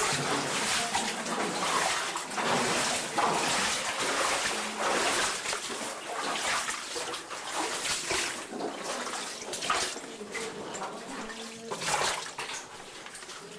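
Cave stream water splashing and sloshing in irregular surges every second or two.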